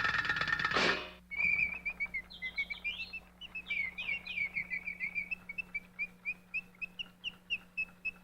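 Quick, high bird-like chirps, starting unevenly and settling into an even run of about four a second. A louder sound with steady held tones cuts off about a second in.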